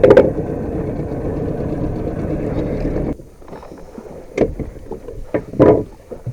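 A small fishing boat's steady running noise, motor and water together, cuts off abruptly about three seconds in. A sharp knock comes at the start, and a few scattered knocks and bumps on the boat follow the cutoff.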